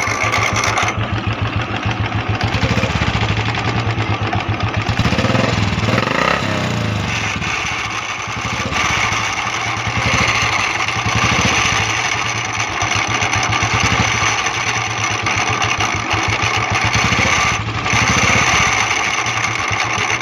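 Royal Enfield Classic 350 single-cylinder engine running with a rasping rattle ("khaskhas") from the starter's one-way clutch, where a broken bearing spring lets the balls knock against the clutch race.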